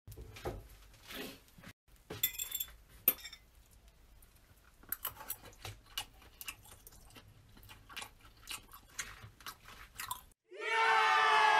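Close, crunchy chewing of crisp food, as of bacon being eaten: a run of irregular bites and crunches. About ten seconds in it cuts off and a crowd bursts into loud cheering.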